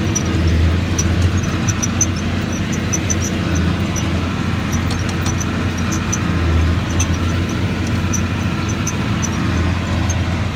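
John Deere 4850 tractor's six-cylinder diesel engine running steadily under load while it pulls a square baler. The low hum swells every few seconds, and a scatter of small, sharp ticks sounds over it.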